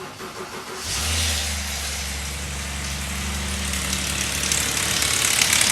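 2008 Subaru Outback's 3.0L flat-six engine starting about a second in and then idling, with a high rattling haze that grows louder toward the end. The owner suspects the rattle comes from the timing chain tensioner.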